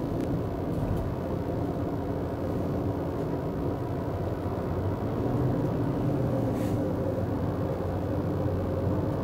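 Steady road and engine noise heard from inside a car's cabin as it drives along a paved highway: a low, even hum.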